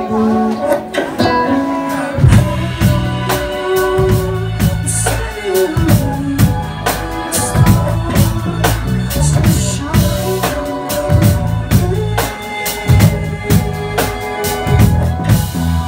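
Live rock band playing: a drum kit with kick drum comes in about two seconds in and keeps a steady beat under sustained keyboard notes and guitar.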